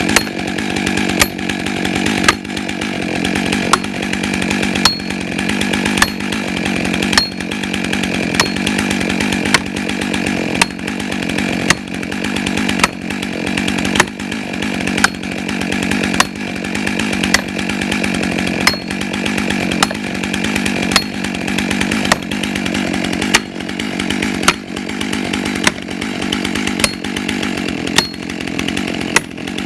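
Chainsaw running steadily, with a sharp tick about once a second.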